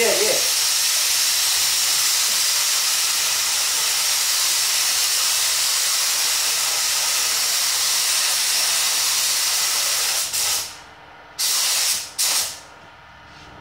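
Iwata Airgunza 1.3 spray gun hissing steadily as it lays clear coat on a car's bodywork. About ten seconds in the trigger is released, then two short blasts follow before it stops.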